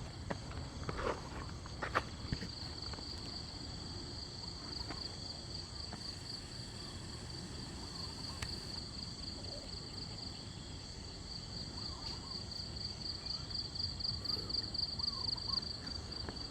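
Steady high-pitched trilling chorus of crickets or other night insects, with a few soft knocks and rustles in the first couple of seconds.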